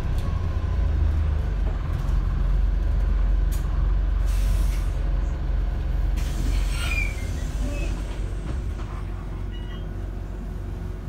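Wright StreetDeck double-decker bus heard from the upper deck: a steady low engine and road rumble, with a short hiss of air about four seconds in and a brief brake squeal near seven seconds. The rumble grows quieter over the last few seconds.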